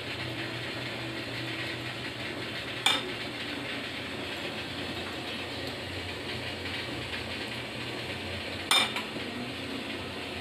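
Two sharp metallic clinks, about six seconds apart, from steel and glass kitchenware as leaf cups of batter are filled and set on a steel steamer plate, over a steady low hum.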